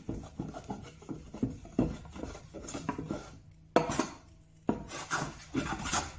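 Metal bench plane taking a run of short strokes along the edge of a glued-up wooden panel, each stroke a brief scraping rasp, the strongest few in the second half. The strokes are shaving off excess dried glue.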